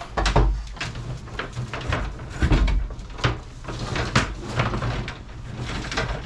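Irregular knocks, clunks and low thuds of hands-on work in a small room: wire and gear being handled and bumped about.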